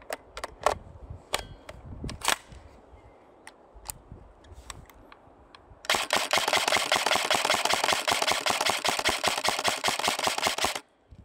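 Airsoft gun firing: a few scattered single shots, then about six seconds in a long, rapid full-auto burst lasting about five seconds that cuts off suddenly.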